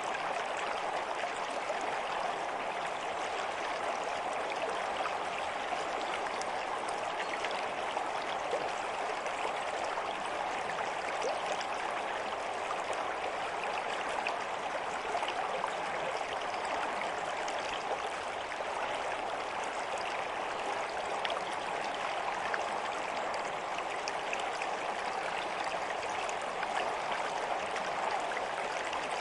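A stream of running water, flowing steadily with a continuous even rush and small flickering splashes.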